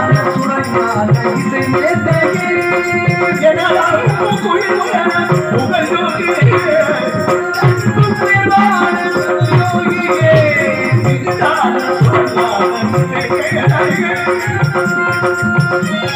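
Live music accompanying a Tamil stage drama: a pair of hand drums beating steadily over a held drone, a shaken rattle, and a melody line that bends up and down in pitch.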